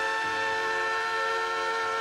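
Steam whistle of the 4-8-4 Northern locomotive 6325, held in one long steady blast that sounds several notes at once.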